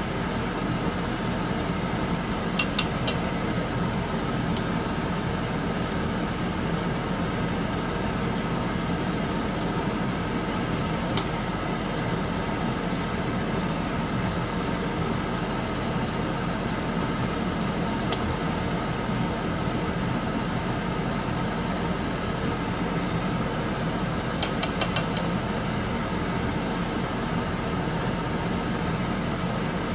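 Beef fat simmering in water in a wok under a steady mechanical hum, with a metal spoon and mesh skimmer clinking against the wok a few times: a quick cluster of clinks about three seconds in, single ones later, and a rapid run of four near the end.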